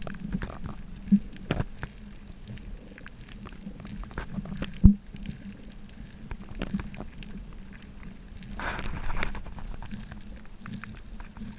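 Underwater sound picked up by a camera in its waterproof housing: scattered clicks and crackles over a faint steady hum, a sharp knock about five seconds in, and a short rushing hiss near the end.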